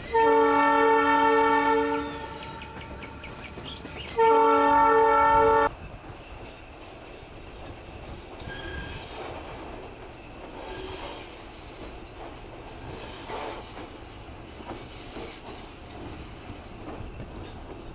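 Locomotive air horn sounding a long blast and then, about two seconds later, a shorter one. The train's running noise follows, quieter and steady, with a few faint high squeals.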